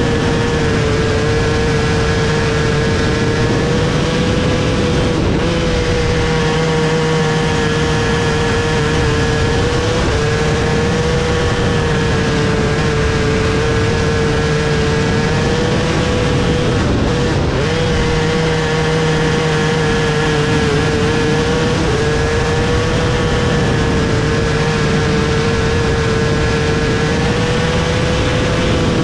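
Onboard sound of a micro sprint car's engine running hard through the laps of a dirt-oval race. It holds a steady high note and dips briefly in pitch every few seconds.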